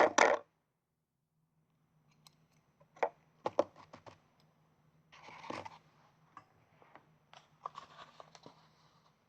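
Scattered sharp clicks and short rustling noises from small objects being handled. There is a louder burst right at the start and a longer rustle about five seconds in.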